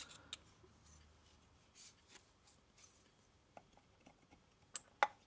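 Copper tube and pipe fittings being handled and set down on a workbench: scattered light clicks and taps with faint rubbing, the loudest click about five seconds in.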